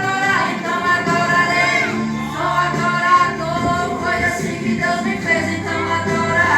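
Group of women singing a Pentecostal praise hymn together, holding and sliding between sustained notes.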